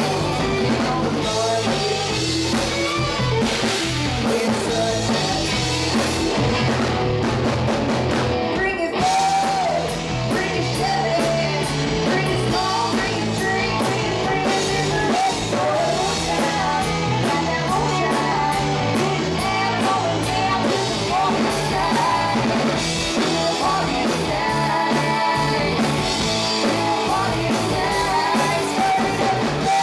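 Live rock band playing: electric guitars, bass and drum kit, with women singing.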